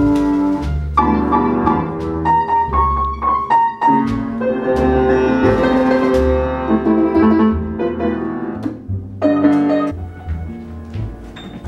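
Upright piano being played by hand: a quick series of single notes and chords, breaking off briefly about nine seconds in before the playing picks up again more quietly.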